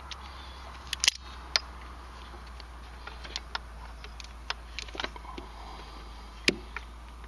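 Scattered small metallic clicks and taps of hand tools on the snowmobile's starter pinion and shaft as the snap ring is worked at, over a steady low hum.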